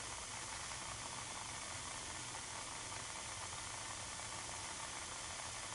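Steady, even hiss of a methanol-fuelled alcohol burner heating a lidded pot of water that is just short of the boil.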